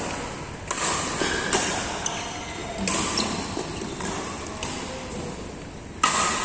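Badminton rackets striking a shuttlecock in a rally: about five sharp, crisp hits, roughly one to one and a half seconds apart.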